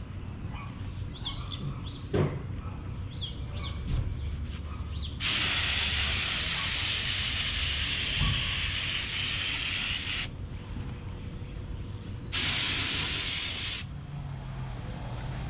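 Gravity-feed air spray gun spraying primer onto car bodywork: a long hiss of about five seconds starting about five seconds in, then a second shorter burst of about a second and a half as the trigger is pulled again.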